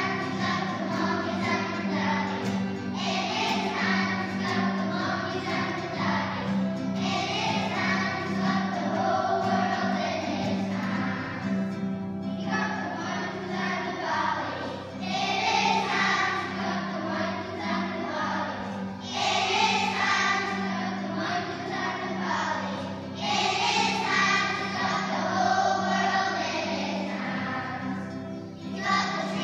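A group of young children singing a song together in unison.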